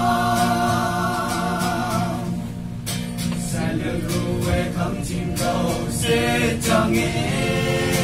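A small group of young men singing a song together, holding a long note at the start, with a brief break about two and a half seconds in before the singing goes on.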